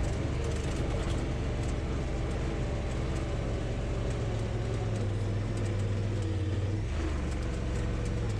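Honda Pioneer side-by-side's engine running at a steady speed while it drives, with a brief dip near the end.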